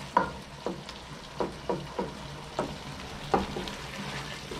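A spoon stirring tomatoes cooking down in a pot, knocking and scraping against the pot about every half second, over a steady sizzle.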